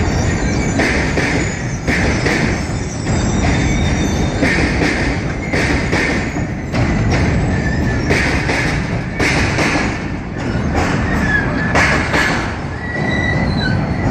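Union Pacific passenger cars rolling over a steel girder bridge: a steady rumble of wheels on rail with repeated clacks as the trucks pass over joints. Brief high wheel squeals come in near the end.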